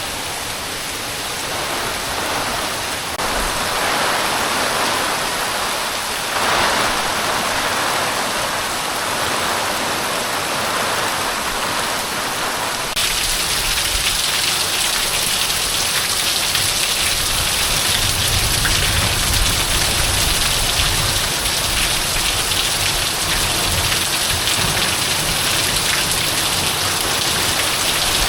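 Heavy rain pouring down, a steady dense hiss that gets louder and brighter about halfway through, with patches of low rumble underneath.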